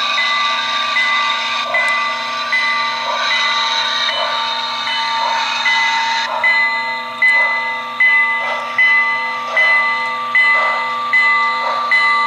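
Model steam locomotive's sound system chuffing slowly and evenly, about one chuff a second, over a steady hiss and tones, as the engine backs out of the roundhouse; the chuffs grow plainer about halfway through.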